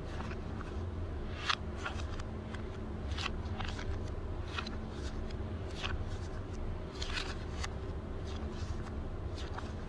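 Euro banknotes rustling and flicking as a hand spreads and shuffles a pile of notes on a table: short crisp paper crackles every second or so, over a steady low hum.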